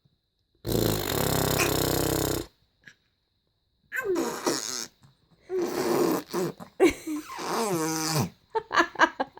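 Imitation fart noises: a low buzzing fart sound lasting about two seconds near the start, then several grunting, falling-pitch vocal sounds and a quick string of short sputters near the end.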